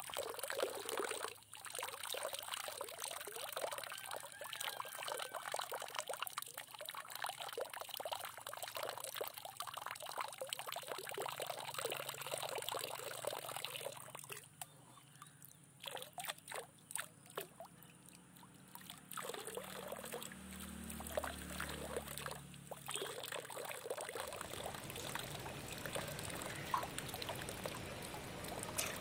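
Pond water trickling and splashing, with many small splashes, around koi crowding at the surface. It goes quieter a little past the middle, where a brief low hum comes in.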